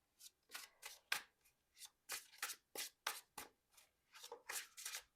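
A deck of tarot cards being shuffled by hand: a run of short, crisp riffles, about three a second.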